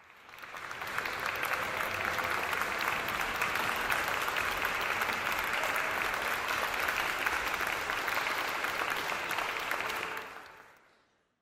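An audience clapping in steady applause. It fades in over the first second and fades out about ten seconds in.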